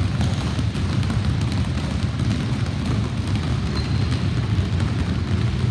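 Many basketballs being dribbled at once on a hardwood gym floor, the overlapping bounces blending into a dense, continuous patter.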